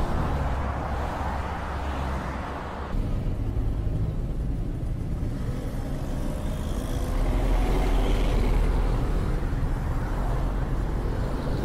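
A steady rushing noise cuts off abruptly about three seconds in and gives way to street traffic. Through the traffic runs a low engine rumble that swells around eight seconds in as a vehicle passes.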